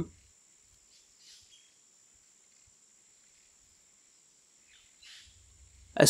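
Near silence in a pause between spoken phrases: a faint steady high-pitched tone, with two faint short hisses, one about a second in and one near the end.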